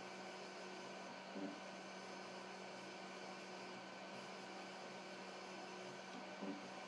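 Homemade powder-bed sugar printer running, its inkjet print-head carriage scanning over the sugar bed: a faint steady hum with a few fixed tones, broken by two short low knocks, about a second in and near the end.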